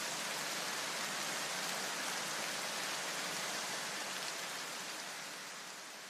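Steady, even rushing hiss of noise with no distinct events, fading away over the last second or so.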